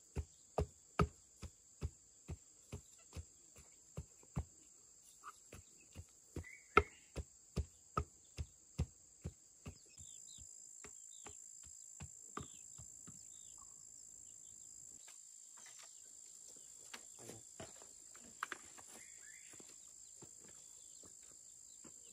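Repeated blows of a hand tool, evenly paced at about two and a half a second, stopping about ten seconds in, after which only a few scattered knocks follow. Insects drone steadily throughout.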